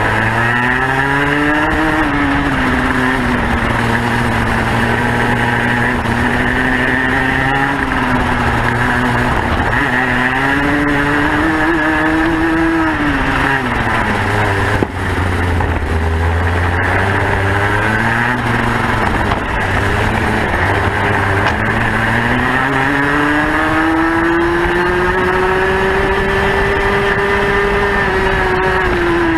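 Racing kart engine heard from on board at race pace, its pitch rising on the straights and dropping into the corners, lap after lap. Near the end it climbs steadily in pitch for several seconds along a straight before falling away again.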